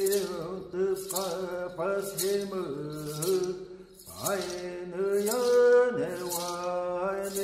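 Male voice chanting a Hopi song in long held notes. A high rattling hiss sounds about once a second, keeping the beat.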